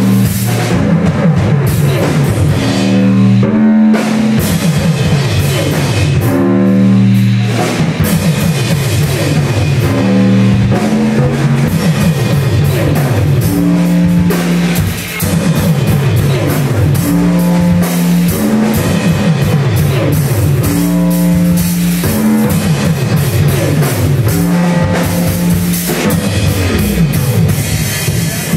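Live band playing loud rock music: a drum kit pounding under guitar and long held low bass notes that change pitch every second or two.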